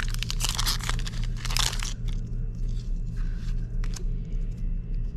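Foil wrapper of a Pokémon trading card booster pack crinkling and tearing open for about two seconds, then a few lighter crinkles and taps as it is handled. A low steady hum runs underneath.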